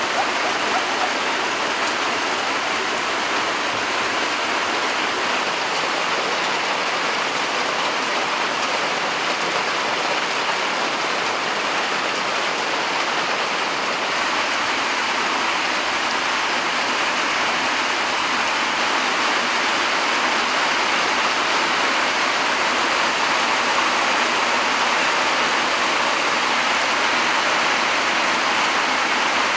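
Heavy rain falling steadily on foliage and grass: a dense, even hiss of drops.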